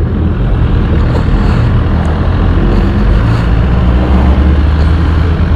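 BMW S1000RR sport bike's inline-four engine running as the bike rides off, a steady low drone that swells louder about four seconds in.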